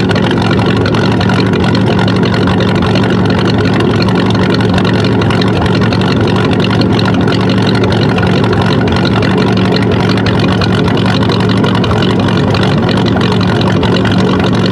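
Ford 5.0 L 302 V8 idling, heard right at the tailpipe, its exhaust pulsing steadily against a rag held over the pipe. This is a rag test for a burnt exhaust valve: a rag sucked back into the pipe would show it, and the owner is pretty sure one cylinder has a burnt valve.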